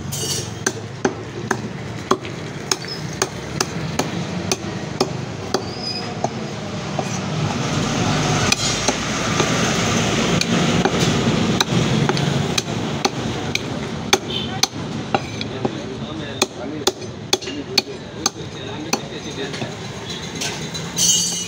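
Heavy butcher's cleaver chopping country chicken on a wooden log block: sharp repeated chops through meat and bone, about one or two a second.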